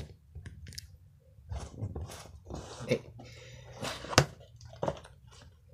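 A cardboard wand box being handled and opened: scattered knocks and clicks of the box and lid, with rustling and scraping in between.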